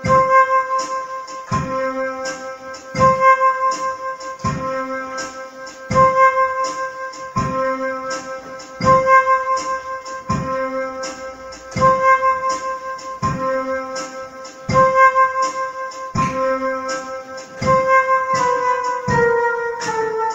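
Electronic keyboard music in an electric-piano voice: a repeating figure with a low note about every one and a half seconds under held higher notes and a steady clicking beat. Near the end the held notes step downward.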